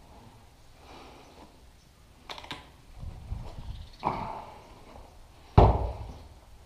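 Close knocks and thuds of a rifle and gear being handled on a concrete block: a couple of light clicks about two seconds in, a dull thud about four seconds in, and the loudest hard knock about five and a half seconds in.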